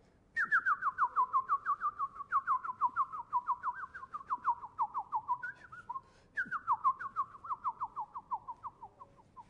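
A bird call: a rapid run of short down-slurred whistled notes, about five a second, the run gradually falling in pitch. It comes twice, the second run starting about six seconds in.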